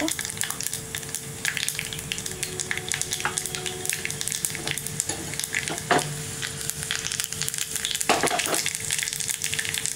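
Mustard seeds, cumin and urad dal sizzling and crackling in hot oil in a small pan, a dense run of small pops over a steady hiss: a South Indian tempering frying while the urad dal turns golden.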